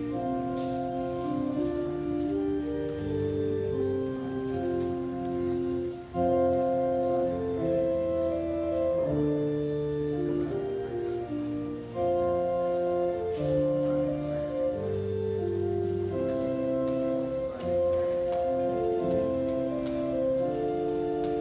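Slow instrumental keyboard music of long held chords, in phrases with short breaks between them.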